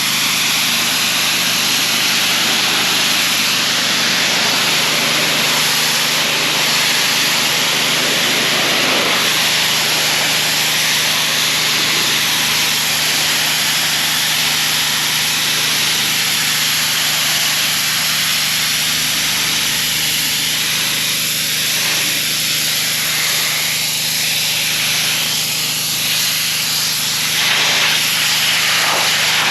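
Gas-engine pressure washer running steadily, with the hiss of its high-pressure water spray blasting dirt and algae off a retaining wall. The spray noise swells briefly near the end.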